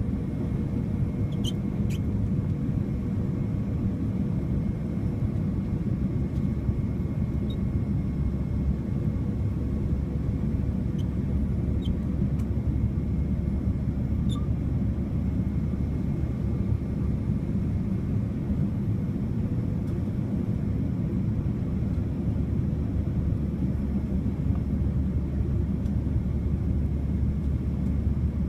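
Steady cabin noise inside a Boeing 787-9 in flight: a constant deep rumble of airflow and its Rolls-Royce Trent 1000 engines, with faint steady hums over it and a few tiny clicks.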